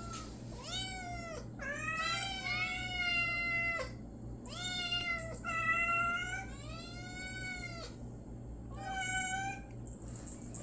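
Several domestic cats meowing in turn and over one another: about seven drawn-out, arching meows, two of them at once partway through.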